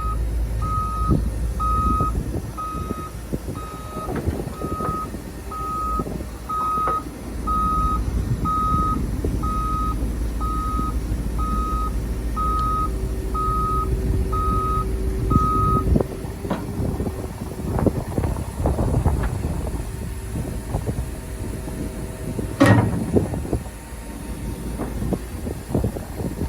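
Heavy machine's reversing alarm beeping about once a second over its diesel engine running, the beeping stopping after about 16 seconds. A single sharp knock about 23 seconds in.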